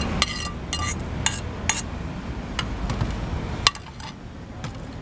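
A frying pan clinking and knocking against dishes as food is served out of it. Several quick clinks in the first second or so ring briefly like metal, then sparser single taps follow, one sharper knock coming late.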